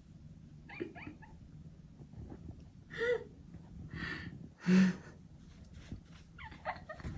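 A pet dog making about five short, noisy sounds, the loudest a little under five seconds in.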